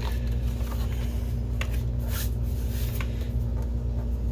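A plastic video projector being handled and turned over on a cardboard-covered bench, giving a few light clicks and knocks over a steady low hum.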